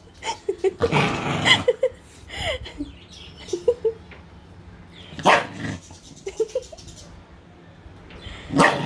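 Small white spitz-type dog grumbling and whining in short squeaky calls, with three louder bark-like outbursts, about 1 s in, midway and at the end. It is the dog's protest at being taken for a bath.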